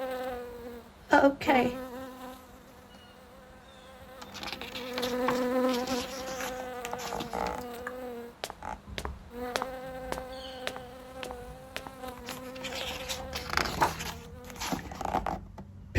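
Housefly buzzing sound effect: a steady buzzing drone that drops out briefly a couple of times.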